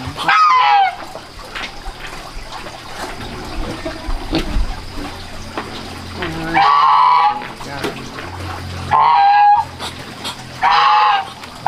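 Domestic fowl calling: four short, loud calls a few seconds apart, the first falling in pitch.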